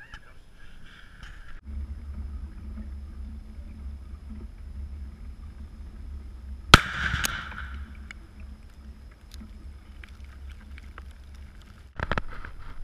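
A .308 rifle shot followed about half a second later by the detonation of a one-pound Tannerite exploding target: a sharp crack, then a second bang that trails off over about a second.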